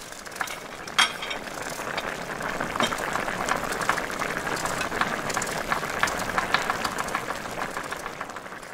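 A dense clatter of small clicks and clinks over a steady hiss, swelling up over the first couple of seconds and fading out at the end.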